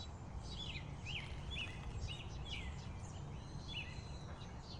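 Small birds chirping: a string of short, quick chirps, several a second, over a steady low rumble of outdoor background noise, with a thin held whistle-like tone near the end.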